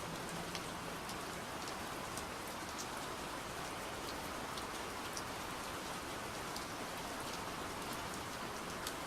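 Steady gentle rain falling, an even hiss with scattered small drop ticks.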